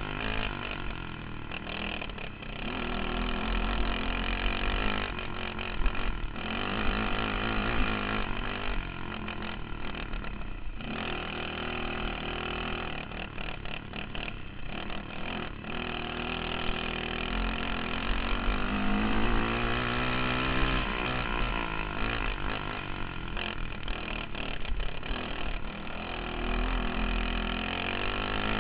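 Racing kart engine heard from an onboard camera, its pitch rising as it accelerates out of corners and falling as it lifts off, again and again, with knocks and rattles from the bumpy dirt track.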